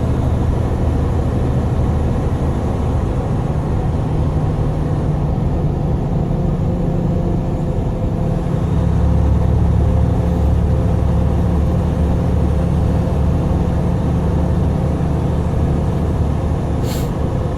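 Vehicle engine and road noise heard from inside the cab while driving: a steady low drone that grows stronger about nine seconds in. One brief click comes near the end.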